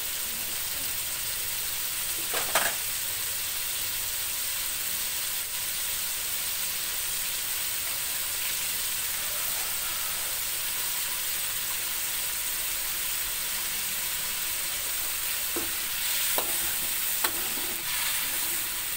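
Ground spice paste sizzling in hot oil in a wok, a steady high hiss as it is sautéed until fragrant. A spatula scrapes and knocks against the pan a few times, about two seconds in and again near the end.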